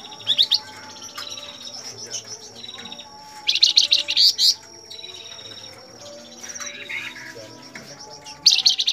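Caged flamboyan songbird singing: three loud bursts of rapid, chattering high notes, the longest about a second, with a softer call between them. A thin steady high note and fainter calls from other birds run underneath.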